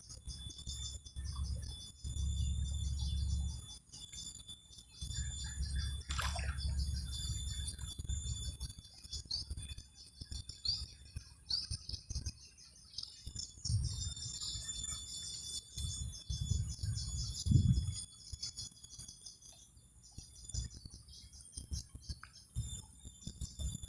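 Swamp insects chirring in a steady, fast-pulsing high drone, with a falling bird-like whistle about six seconds in. Patchy low rumble comes and goes underneath, with a short thump about three-quarters of the way through.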